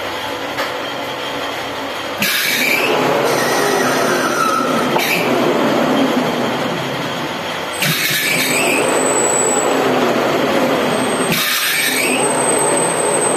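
Manual lathe starting up about two seconds in and running, spinning a brass banjo bolt in the chuck for outer threading, with high squealing tones over the machine noise. The noise dips and jumps back up twice more.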